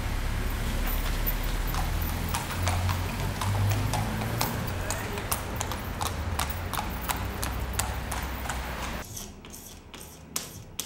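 A horse's hooves clip-clopping on a paved street as it pulls a cart, over a steady low rumble. The sound cuts off about nine seconds in, leaving a quieter background with a few faint clicks.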